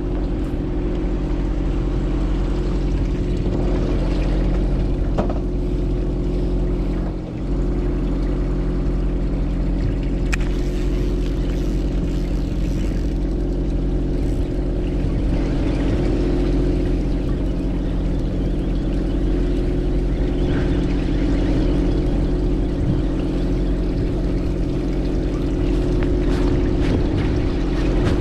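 Fishing boat's engine running steadily: a constant low hum made of several steady tones, with a short dip about seven seconds in.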